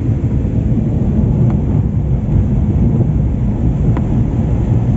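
Steady low rumble of a car on the move, heard from inside the cabin, with two faint ticks about two and a half seconds apart.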